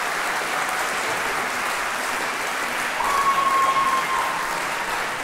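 Audience applauding steadily after a live orchestral performance. About three seconds in, a single held whistle-like tone sounds for a second and a half over the clapping.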